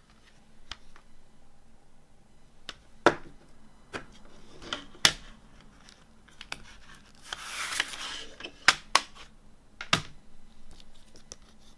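Plastic CD jewel case being handled and opened: a series of sharp plastic clicks and snaps, with a longer papery rustle about seven to eight seconds in as the booklet is slid out of the front cover.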